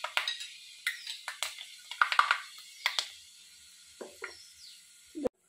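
Mustard and fenugreek seeds spluttering in hot coconut oil: irregular sharp pops, thick for the first three seconds, then thinning to a few. The popping is the sign that the oil is hot enough for the tempering.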